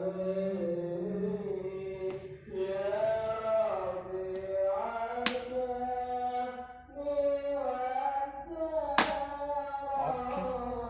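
Sholawat, Islamic devotional chanting, sung in long melodic lines. A few sharp clicks cut through it, the loudest about nine seconds in.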